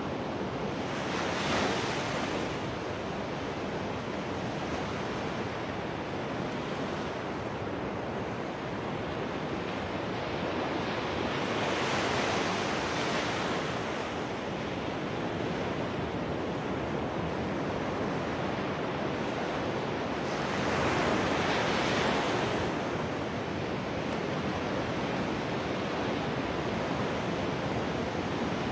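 Ocean surf washing up a sandy beach: a steady rush of water, with three louder breakers swelling and fading, about a second in, around twelve seconds and around twenty-one seconds.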